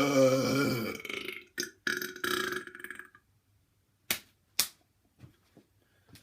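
A man's long, deep, loud belch, followed about two seconds in by a shorter second burp. Two sharp clicks come a little after four seconds in.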